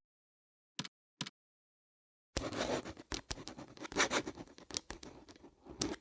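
Two short clicks, then a few seconds of irregular scratching and rustling with scattered sharp taps, as of objects being handled.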